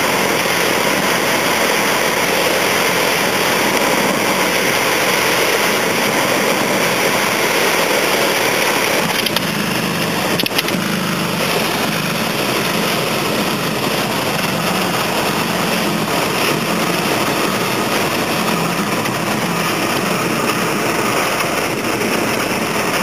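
Light plane landing: a steady loud rush of engine noise and airflow. Two brief knocks come about nine and ten and a half seconds in.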